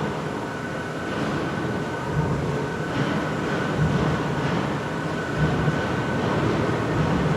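Large factory machine running steadily: a continuous mechanical rumble with a steady high whine and irregular low thuds.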